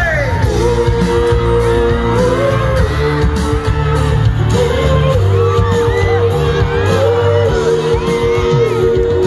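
Live band playing an instrumental break of a pop-rock song over a concert PA, with held notes, and the crowd shouting and whooping over it.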